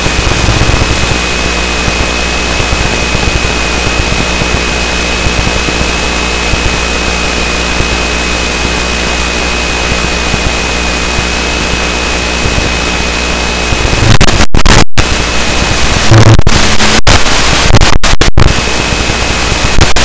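Loud, steady static hiss from an analog FPV video receiver, with a thin constant high whine running through it. From about two-thirds of the way in, it breaks into loud surges of static and brief cut-outs to silence, as the radio link drops in and out.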